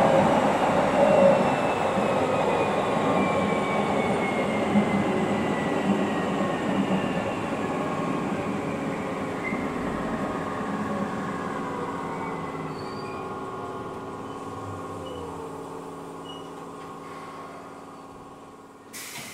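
Keikyu 800 series field-chopper-controlled electric train heard from behind the driver's cab, slowing down. The wheel-and-rail rumble fades steadily, and the motor and gear whine slides gradually lower in pitch. A short sharp click comes near the end.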